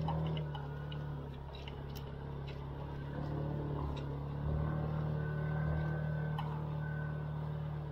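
Motorcycle engine running steadily at low revs, its pitch easing down slightly about half a second in, with scattered light ticks over it.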